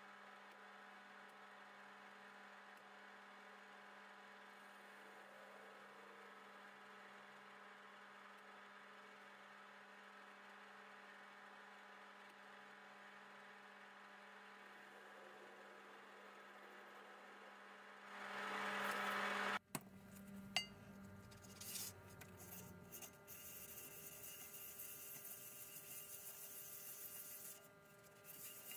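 Harrison M300 lathe running with a faint steady hum and several steady tones while the tool faces the top of a bolt; the sound swells about 18 seconds in. After a sudden break, the bolt top is rubbed on wet abrasive paper on a steel plate, a louder scratchy rubbing with a few clicks.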